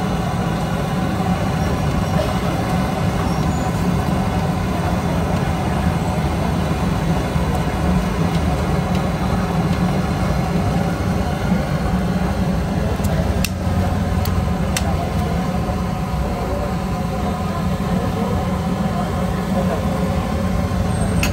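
Steady low roar of the noodle cart's gas burner under a big pot of boiling water, with a few light metal clinks about two-thirds of the way through.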